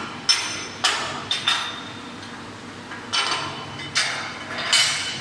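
Steel plate pieces clinking and knocking against a steel welding table as they are set in place, about seven sharp ringing metal hits in two clusters, one early and one late.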